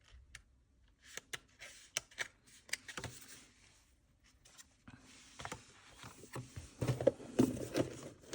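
Small items and packaging being handled: scattered light clicks and taps, then from about five seconds in a steady rustle of wrapping with louder knocks and handling noises near the end.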